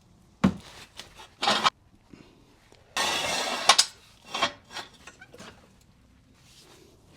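Knocks and clatter of metal tools and parts being handled under a car, with a harsh scrape lasting about a second near the middle and a few lighter clicks after it.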